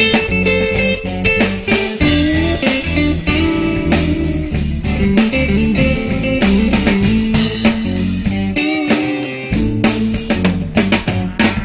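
Live blues band in an instrumental break: electric guitars playing over bass guitar and drum kit.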